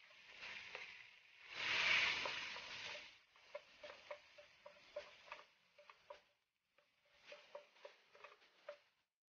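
Minced garlic sizzling in melted butter in a nonstick frying pan, loudest in a surge about two seconds in. A wooden spatula stirs it with a run of short scrapes and taps against the pan, pausing briefly midway; the sound cuts off just before the end.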